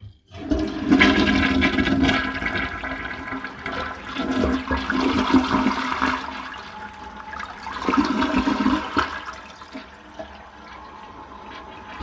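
A toilet flushing: water rushes and gurgles through the bowl, surging a few times before dying down near the end.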